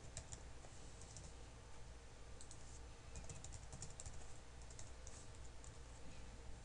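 Faint typing on a computer keyboard: short runs of keystrokes with pauses between them, over a low steady hum.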